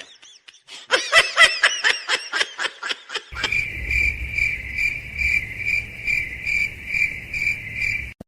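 A rapid run of squeaky chirps, then from about three seconds in a cricket chirping steadily in even pulses, roughly two to three a second, over a low rumble.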